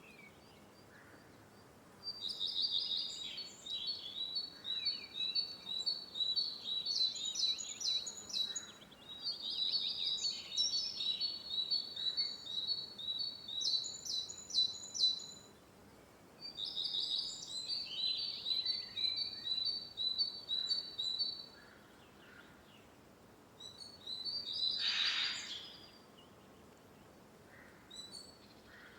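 A bird singing three long phrases of rapid, high repeated notes with quick trilled flourishes, each about five to six seconds long and separated by short pauses. Near the end comes a shorter, harsher call.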